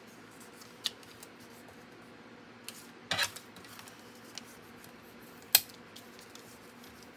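White cardstock pieces being handled and set down on a tempered glass craft mat, with a few scattered light taps and clicks, the sharpest about two-thirds of the way through.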